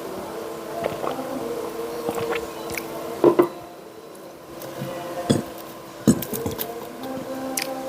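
Close-up eating sounds: chewing and crunching crispy fried jalakotek pastry, with a few sharp knocks about three, five and six seconds in, over a steady low hum.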